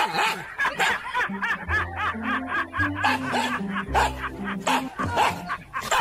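Laughter in quick repeated ha-ha syllables over background music, whose bass notes move in steps.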